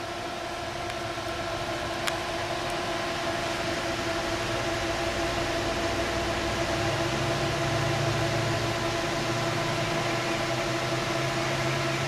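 Four Delta AFB1212SH 120 mm high-speed fans pulling air through a water-cooling radiator: a steady rush of air with a steady hum from the blades, slowly growing louder.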